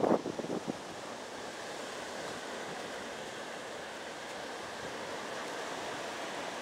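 Steady wash of ocean surf, with a few brief handling knocks in the first second.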